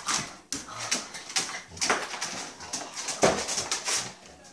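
A dog whimpering for treats, mixed with irregular crinkling and rustling as the treat packaging is handled.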